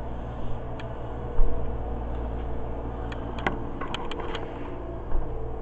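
Steady low indoor hum with a faint held tone, broken by a few light clicks and taps: one sharper knock about a second and a half in and a small cluster of clicks a little past the middle.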